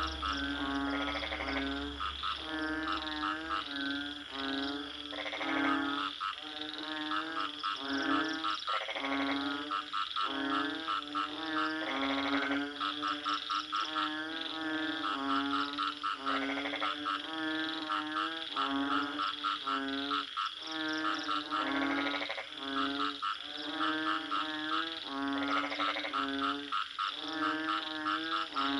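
Frogs croaking over and over: short pulsed croaks follow one another in quick succession, with a longer, higher call every few seconds.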